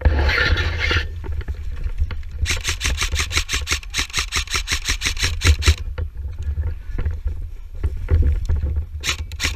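Airsoft rifle firing on full auto: a rapid string of sharp shots at about ten a second, lasting about three seconds, then a couple of short bursts near the end.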